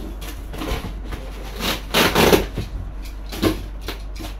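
Packaging being handled in a large cardboard box: cardboard and plastic wrapping rustling and bumping in several short bursts, the loudest about two seconds in.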